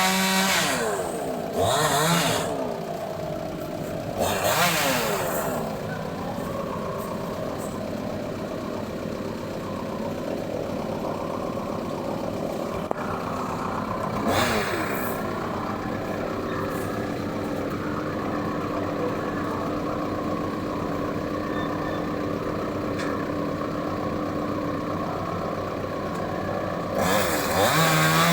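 Chainsaw idling with several brief revs, about four in all, then revving up and staying at high throttle near the end.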